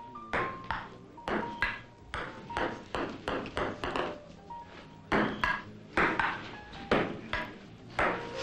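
Table tennis rally: the celluloid ball clicking against the paddles and the table about twice a second, with faint background music underneath.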